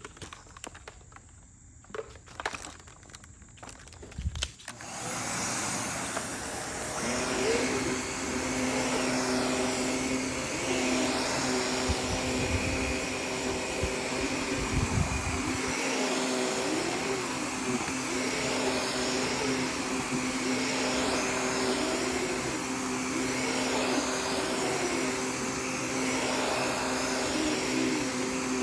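A few handling clicks and knocks, then a vacuum cleaner switches on about five seconds in and runs steadily, its sound wavering slightly every couple of seconds as it is worked over a rug.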